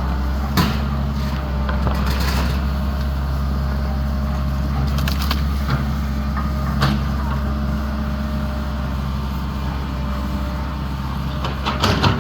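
An excavator running with a steady low drone, with a few sharp clacks and knocks scattered through and a small cluster of them near the end.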